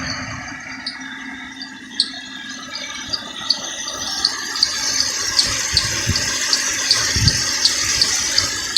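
Ford Explorer 4.0L V6 running with a short, high chirp repeating about three times a second over a steady engine hiss. The chirp came after a timing chain, tensioner and head gasket job, and was traced to the crankshaft timing gear behind the harmonic balancer having been installed upside down.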